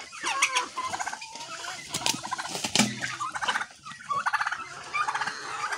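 A flock of Kabir and Rhode Island Red chickens calling and clucking, with a turkey's rapid warbling calls among them. A few sharp knocks stand out, the loudest near the middle.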